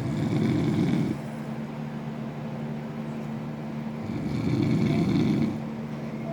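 A man snoring loudly: two long snores, one right at the start and another about four seconds in, each lasting over a second, over a steady low hum.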